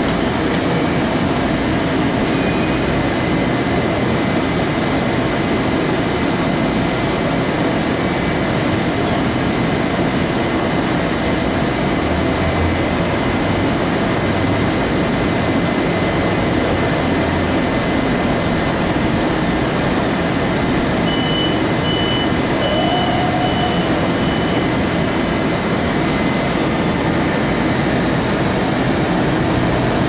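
Long Island Rail Road M-7 electric multiple-unit train standing at a station platform with its doors open, its equipment running with a steady, even rush of noise.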